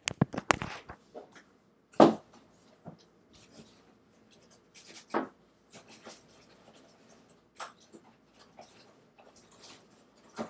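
Scattered clicks, knocks and rustles of someone rummaging for something and handling objects, with a quick run of clicks at the start and a louder knock about two seconds in.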